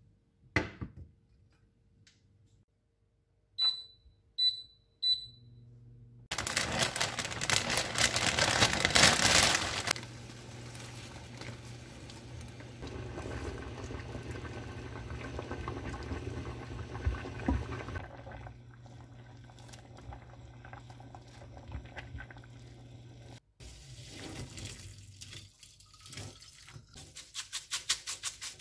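Three short high electronic beeps from an induction cooktop's controls. Then water runs loudly for a few seconds, followed by a pot of water boiling on the induction hob with a steady low hum as glass noodles are stirred. Near the end a metal mesh strainer starts being tapped and shaken over a stainless-steel sink in a quick rhythm to drain it.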